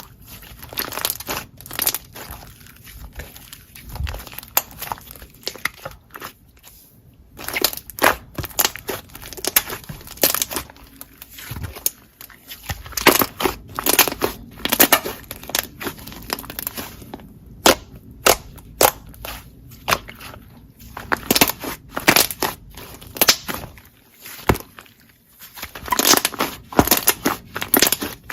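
Slime being squeezed and pressed by hand, giving off irregular clusters of sharp crackles and pops.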